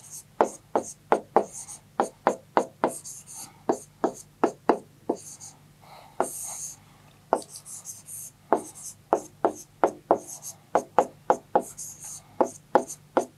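Pen writing on a board: a steady run of sharp taps, two or three a second, with short high scratchy strokes between them as the equations are written out.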